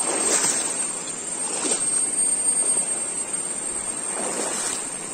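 Swollen, muddy river in flash flood rushing past, a steady rush of water with a few louder splashing surges.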